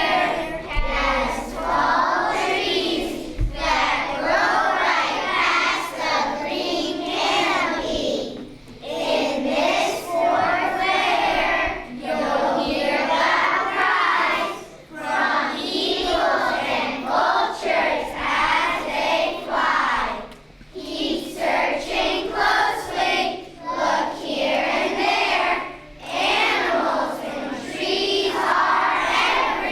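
A group of children singing a song together in phrases of a few seconds, with short breaks between them.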